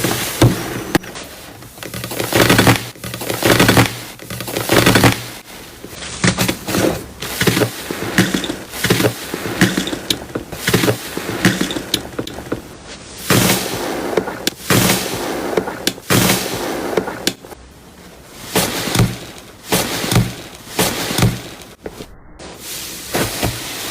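Iceberg slime being pressed and squeezed by hand, its hardened top crust crunching and crackling in repeated irregular bursts.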